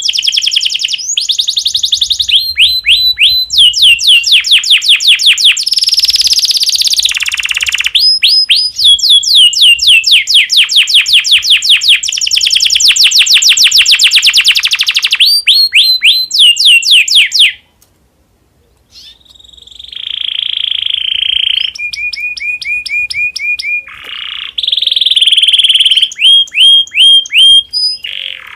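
Domestic canary singing in breeding condition: fast rolling trills, each phrase a rapid run of identical high notes, with a short pause about two-thirds of the way through.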